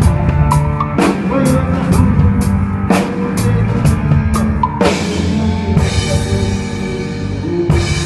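Live band playing during a sound check: a drum kit keeps a steady beat of about two strikes a second over bass and other pitched instruments. The drum strikes drop out for a couple of seconds past the middle, under a cymbal wash, then come back near the end.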